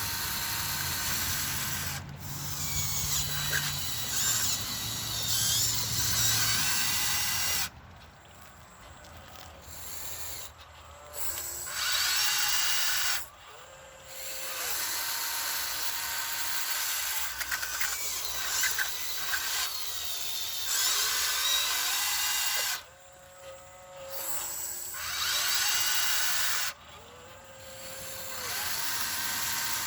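Huina 1599 RC excavator's electric gear motors whining in repeated bursts of a few seconds, each with short pauses between; the pitch rises as a motor starts and falls as it stops.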